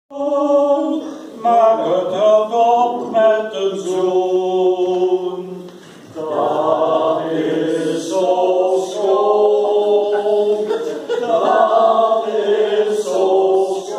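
A small group of men and women singing together, unaccompanied, with long held notes and a short break about six seconds in.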